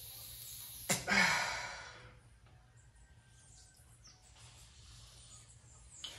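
A man blows out one hard breath about a second in, starting with a small click and trailing off over about a second.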